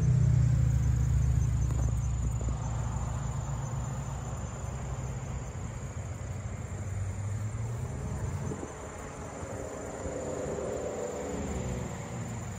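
A motor vehicle's low engine hum, loudest at the start and fading away after about eight seconds, over a steady high-pitched insect buzz.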